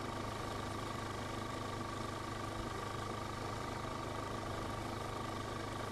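Steady low mechanical hum with a thin steady whine above it, unchanging throughout, like distant machinery running.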